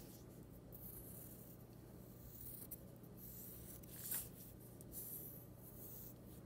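Graphite pencil scratching lightly on paper in a few brief strokes while a drawing is adjusted.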